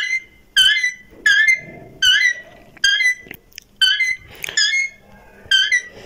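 Indian ringneck parakeet chirping: a run of short, high-pitched calls, about one every two-thirds of a second.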